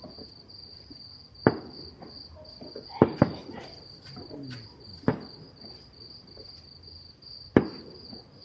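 Distant fireworks going off with sharp bangs: one, then a quick double, then two more spread out. Crickets chirp steadily and high-pitched between the bangs.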